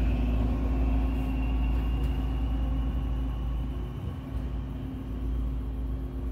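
Stadler 646/946 diesel multiple unit pulling away and receding, its diesel engine running with a steady hum and a high whine that climbs slightly, slowly fading as the train moves off.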